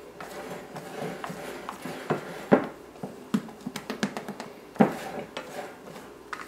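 Silicone spatula folding batter in a glass mixing bowl: soft scraping and scattered clicks against the glass, with a few louder knocks, the loudest about two and a half and five seconds in.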